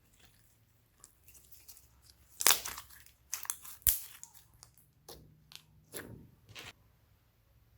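Glossy slime being squished and stretched by hand, giving irregular sticky crackles and pops, the loudest about two and a half seconds in and just before four seconds, with a few more near the end.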